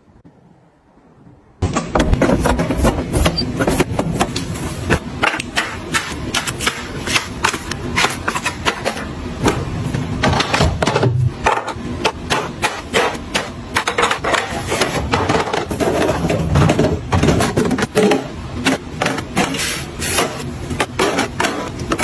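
Aluminium drink cans and small plastic yogurt-drink bottles clicking and clattering as they are set into clear plastic fridge-organiser bins. A dense, fast run of sharp knocks and taps starts about a second and a half in and keeps going.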